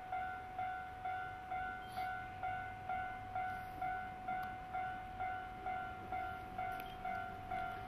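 Japanese railway level-crossing warning bell ringing: one bell-like tone struck about twice a second, each strike fading before the next. It signals an approaching train.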